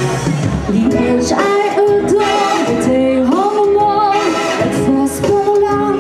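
A woman singing into a microphone over instrumental backing music, holding long notes and sliding up into some of them.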